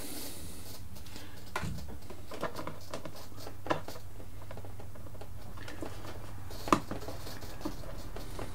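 Small scattered clicks and taps of hands fitting a plastic aileron pushrod, with a ball joint and hook, to a foam model plane. The sharpest click comes about seven seconds in, over a steady low room hum.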